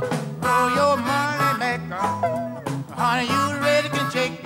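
Live Chicago blues band playing: electric lead guitar with notes that bend and waver in pitch, over electric bass and drums.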